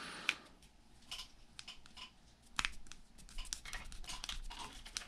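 Irregular light clicks and ticks of a screwdriver and tiny screws being worked into a brushless RC motor's end bell, busier in the second half.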